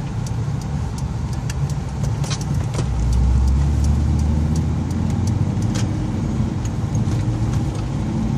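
Truck driving on snow, heard from inside the cab: a steady low engine and road rumble that swells about three seconds in, with scattered light clicks and rattles.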